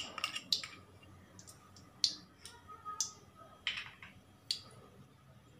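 A spoon clinks and scrapes against an aluminium kadai as ghee is scooped into it. Then come scattered sharp ticks and pops, spaced about half a second to a second apart, as the ghee melts in the hot pan.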